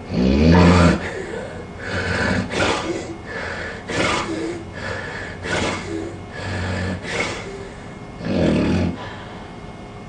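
A sleeping man with severe sleep apnea starts breathing again after about 50 seconds without breath. It opens with a loud choking snore, then runs into rough snoring breaths about one a second, with another loud one near the end. The choking is the sign of his airway closing, and he is about to fall into the next pause in breathing.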